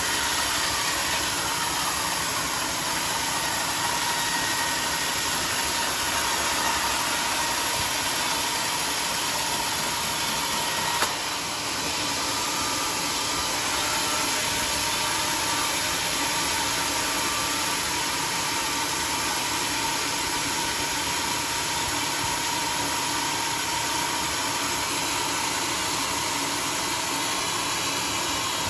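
Homemade wood sawmill running steadily, its motor and saw making a continuous mechanical drone with a high steady whine. Near the start the whine falls in pitch, and a single sharp click comes about eleven seconds in.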